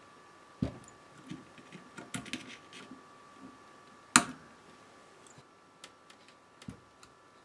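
Steel pliers clicking and scraping on the terminals of an amplifier's power transformer while working a thermal fuse out from between the windings: scattered small clicks, with the sharpest one about four seconds in.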